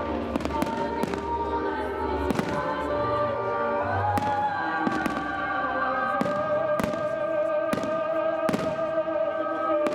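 Fireworks bursting with sharp bangs about once or twice a second, over music with long held notes played along with the display.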